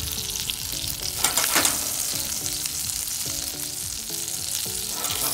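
Fish fillet frying in butter in a pan, a steady sizzle with a burst of louder crackling and spitting a little over a second in.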